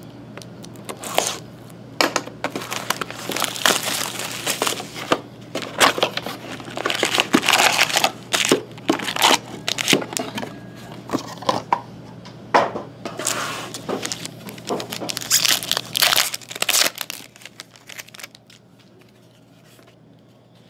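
Plastic shrink wrap and foil trading-card pack wrappers crinkling and tearing in irregular bursts as a card box and its packs are opened by hand, dying down to faint card handling near the end.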